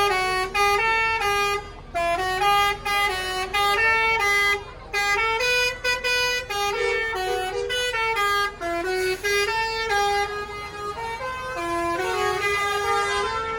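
Bus telolet horn, a multi-tone musical air horn, playing a fast melody of short stepped notes in phrases with brief pauses between them.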